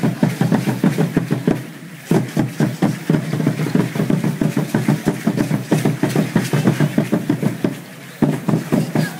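Drum played for Aztec dance, beating a fast, even rhythm of several strokes a second, dropping off briefly about two seconds in and again near the end.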